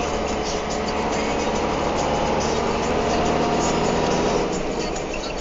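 Truck's engine and road noise heard from inside the cab while driving, a steady hum with a low engine drone that drops a little in level about four and a half seconds in.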